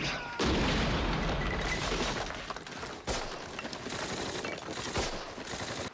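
Battle soundtrack of a war drama: a shell explosion hits hard about half a second in, then a dense rumble of gunfire and debris, with sharp cracks near three and five seconds.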